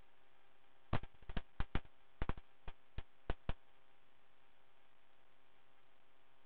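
Near-silent aircraft radio audio line between transmissions, with a run of about a dozen short, sharp clicks between about one and three and a half seconds in.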